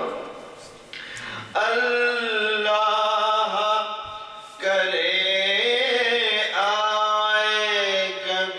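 A man chanting an Urdu noha, a Shia mourning lament, solo and unaccompanied, in long drawn-out wavering melodic lines. He breaks off twice: for about a second and a half at the start and briefly about halfway through.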